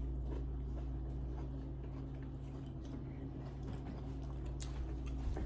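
Faint chewing and mouth sounds of someone eating fufu, with small scattered clicks, over a steady low hum.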